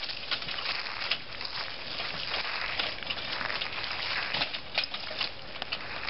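Dry leaves and twigs crackling and crunching under footsteps and the wheels of a small towable backhoe being pulled along, in irregular clicks over a steady rustle.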